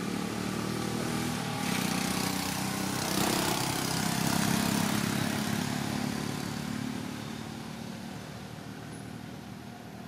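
A vehicle engine running steadily as a low hum that grows to its loudest about four to five seconds in, then fades away.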